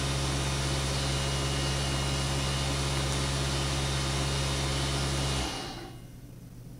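Steady machine hum with a rushing noise, like an appliance or fan running, that shuts off suddenly about five and a half seconds in, leaving quieter room tone.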